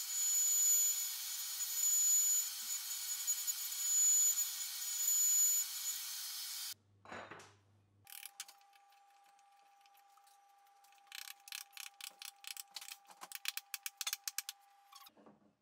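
Shaper Origin handheld CNC router running and cutting into oak: a steady hiss with a high whine, stopping abruptly about seven seconds in. Then a wood chisel paring the oak by hand, in a quick run of crisp clicks and scrapes over the last few seconds.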